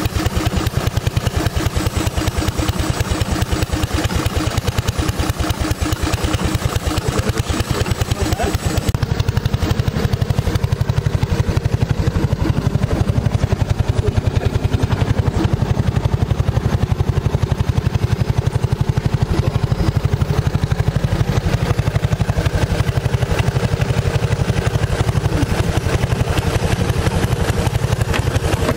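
A river boat's motor running steadily, a rapid even engine beat with no break.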